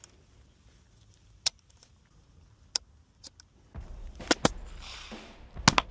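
A few isolated sharp clicks of the shotgun axe's metal firing mechanism being handled. Then wind rumble on the microphone, and near the end sharp cracks as the axe is swung into the log.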